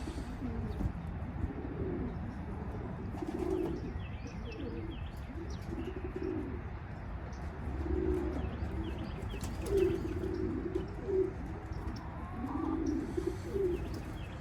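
Racing pigeons cooing, a low call repeated every second or two.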